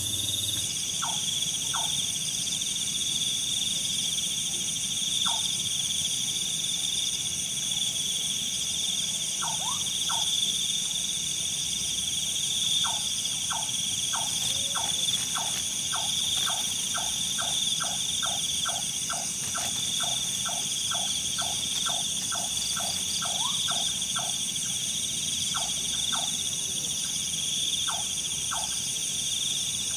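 Insects trilling steadily at several high pitches. Over them, short falling chirps from another animal come singly at first, then in a quick run of about two a second through the middle, then singly again.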